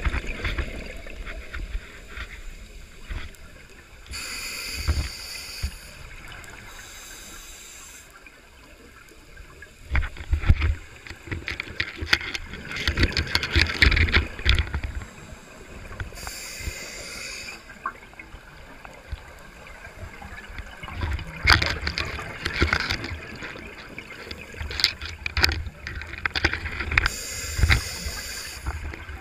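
Underwater sound of scuba divers breathing through their regulators: several rushing, bubbling bursts as exhaled air escapes, a few seconds apart, over low rumbling from moving water, with scattered clicks and knocks.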